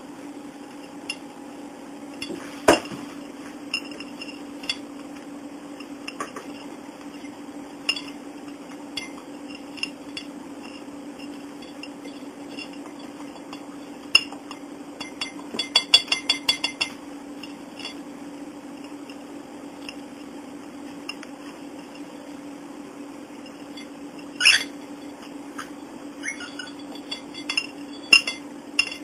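Small toy rings and beads clinking and clattering against a china plate as they are pushed and dropped: scattered single knocks, with a quick run of clicks about halfway through, over a steady low hum.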